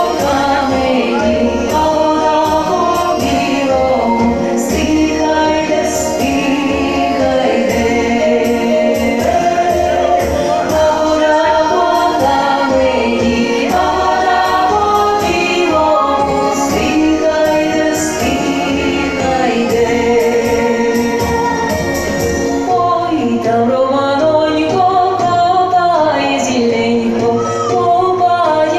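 A song sung by a choir over instrumental accompaniment, playing continuously as dance music for a circle dance.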